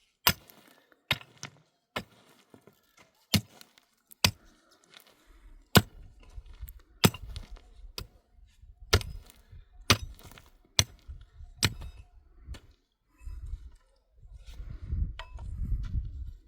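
Sharp, irregular knocks and clinks of hard objects striking, roughly one a second, with low rumbling handling noise between them in the second half.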